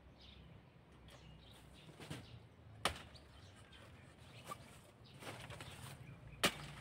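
A machete chopping into the stalk of a banana bunch: two sharp strikes about three and a half seconds apart, with a few lighter knocks between.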